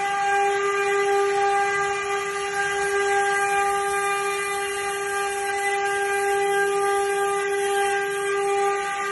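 Stone CNC router spindle running with a steady high whine over a hiss.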